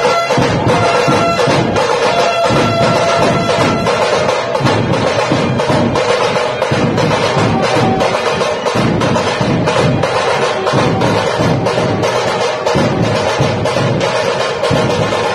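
Dhol drum troupe playing a loud, fast, dense rhythm of drum strokes, with a held higher tone sounding on and off in the first few seconds.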